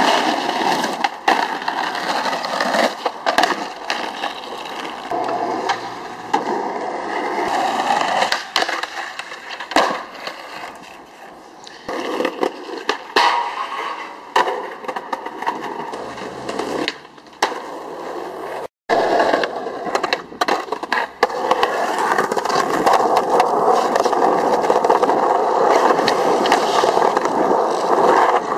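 Skateboard wheels rolling over concrete and asphalt, broken by sharp clacks of the board popping and landing, and the grinding scrape of trucks on a concrete ledge.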